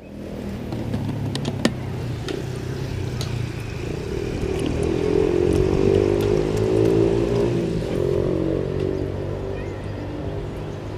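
A motor engine running steadily, growing louder toward the middle and fading again toward the end, with a few sharp clicks in the first two seconds.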